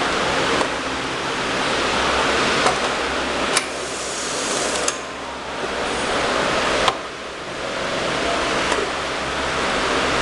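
Steady airy hiss of workshop background noise, with several sharp clicks and knocks from a manual round-bottle sticker labeling machine as plastic spray bottles are rolled through it and set down on its steel table.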